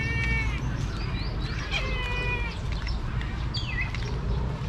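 Two drawn-out, meow-like animal calls about two seconds apart, then a short falling call near the end, over a steady low rumble.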